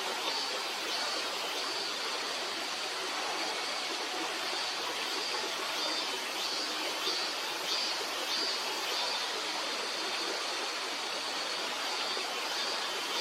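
Stream water running steadily, an even rushing sound with no breaks.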